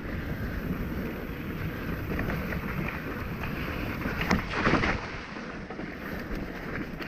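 Mountain bike riding down a dirt trail: tyres rolling over packed dirt, leaves and stones, with the bike rattling and wind buffeting the microphone. A louder, brief scraping burst comes about four and a half seconds in.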